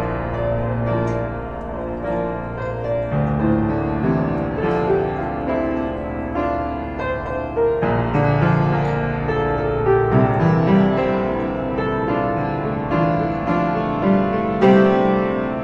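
Piano music: chords over held bass notes, changing every second or two.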